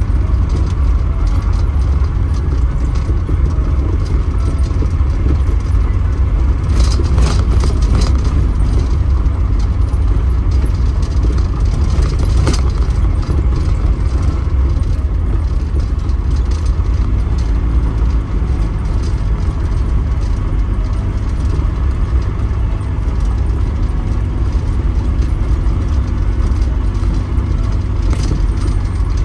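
Camper van driving, heard from inside the cab: a steady engine and road rumble, with loose things rattling and ticking throughout.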